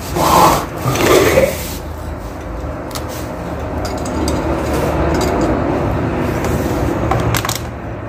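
Gas brazing torch burning with a steady hiss that sets in about two seconds in and grows slightly louder, with a few sharp clicks.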